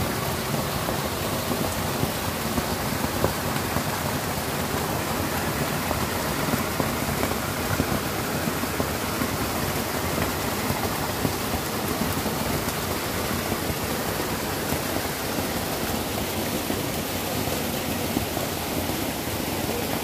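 Water rushing steadily: a small waterfall spilling over rocks and a shallow stream running over gravel.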